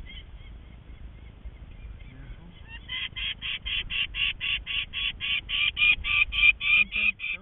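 Peregrine falcon cacking: a rapid series of short, harsh notes, about five a second, starting about three seconds in and growing louder. This is the falcon's alarm call at intruders in its nest.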